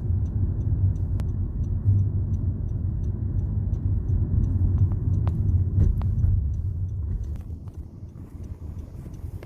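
Car driving, heard from inside: a steady low rumble of engine and road noise that eases after about seven seconds. Faint quick ticking, about three a second, runs through the first half.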